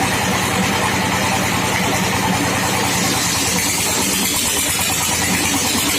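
Sawmill machine running steadily, with a fast, even engine-like pulse under a hiss of higher noise.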